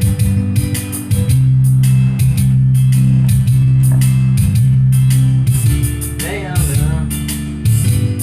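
Instrumental intro of a country-rock song: guitar, bass and a drum kit playing at a steady beat, with cymbal strikes at even spacing. A brief wavering melodic line comes in near the end.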